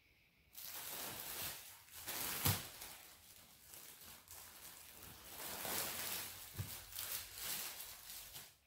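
Clear plastic packaging crinkling and rustling as a folded suit is handled in its bag, uneven and stop-start, with a couple of sharper crackles, about two and a half and six and a half seconds in.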